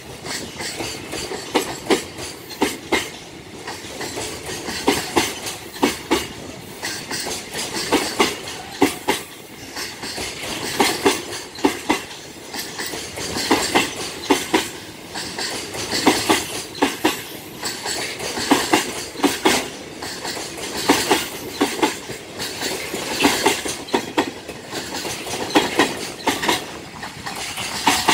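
A JR Freight container train's flatcars rolling past close by, their wheels clattering over the rail joints in repeated clusters of sharp clicks, one cluster every couple of seconds, over a steady rolling rumble.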